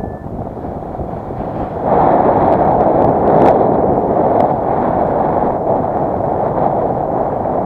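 Strong wind blowing across the camera's microphone: a steady rushing noise that gets louder about two seconds in.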